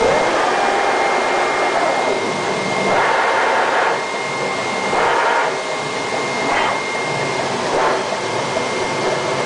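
Flatbed cutting plotter kiss-cutting a sheet: a steady rushing hiss with a thin high whine throughout, and louder surges of motor noise about three seconds in and then every second or two as the cutting head moves.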